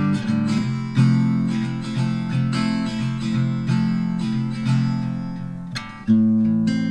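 Background music of acoustic guitar strumming, with fresh strummed chords about a second in and again near the end.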